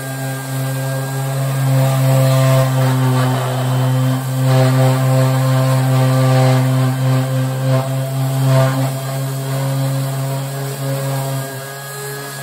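Electric random orbital sander running with a steady hum, its pad scouring old paint off a steel VW Beetle decklid. The scratchy grinding of the pad on the panel grows louder about two seconds in and eases off near the end.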